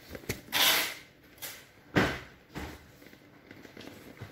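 Hands working the vinyl of an inflatable pool ring at its air valve: a few short rustling, hissing noises, with a sharp tap about two seconds in.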